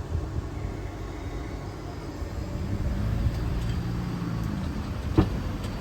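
Low vehicle engine rumble that swells into a steady hum about halfway in, with a single sharp knock near the end.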